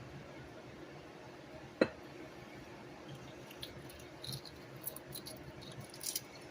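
Quiet kitchen with one sharp click about two seconds in, then a few faint light ticks and taps from small items being handled.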